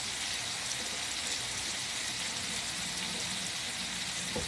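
Chicken breasts frying in oil in an electric skillet, a steady sizzle. A short knock sounds near the end.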